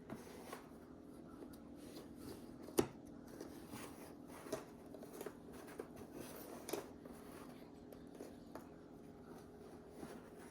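Jigsaw puzzle pieces being handled and set down on a table: scattered faint clicks and rustles, with one sharper click about three seconds in.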